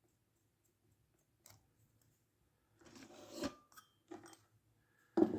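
Small tools handled on a workbench during SMD LED desoldering: quiet at first, then about three seconds in a short scraping rub that builds and stops abruptly, a couple of light clicks, and a louder clatter near the end.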